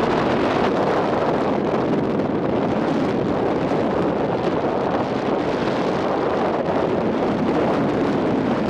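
Strong wind buffeting the microphone on a ferry's open deck, a steady rushing noise, with the rush of white water breaking along the ship's hull in rough sea.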